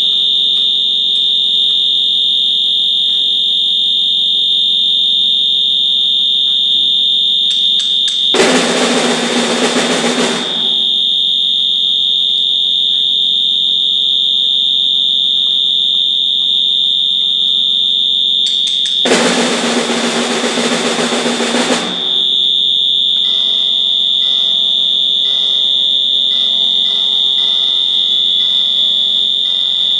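A loud, piercing high tone held steady throughout, broken twice by loud noisy rushes of about two seconds each, roughly eight and nineteen seconds in.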